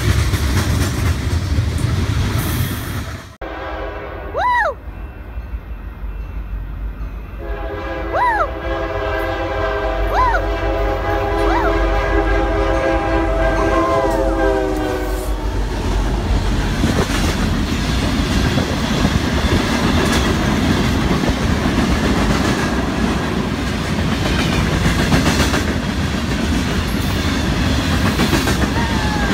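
Freight cars clattering past, then a Union Pacific diesel locomotive's multi-chime horn sounding a short blast and then a long blast of about eight seconds as it passes. After the horn the train's freight cars keep rolling by with a steady clatter of wheels on rail.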